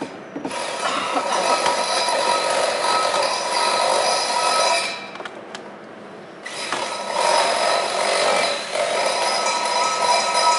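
Handheld power tool running in two long runs of about four seconds each, with a pause of about a second and a half between: a steady whine over rough noise, with the tool working at a bolt on a boat hull.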